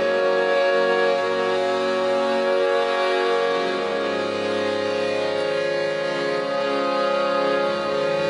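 Instrumental soundtrack music of long held, droning notes with no beat.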